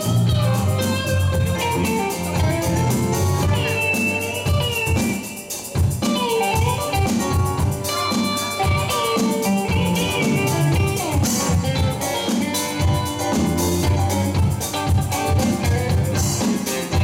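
Live rock band playing an instrumental break: a Telecaster-style electric guitar takes the lead with bent notes over electric bass, drum kit and keyboard.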